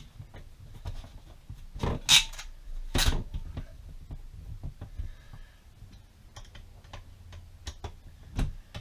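Small metal clicks and clatter as interchangeable dies are fitted into the jaws of an IWISS HS-30J ratcheting wire crimper, with two louder knocks about two and three seconds in.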